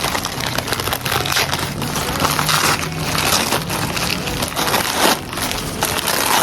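Paper wrapping crinkling and rustling in irregular crackles as a plain bagel is unwrapped and handled.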